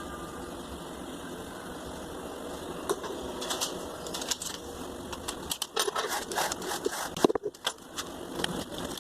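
A small generator engine running steadily, with irregular sharp clicks and knocks coming over it from about three seconds in.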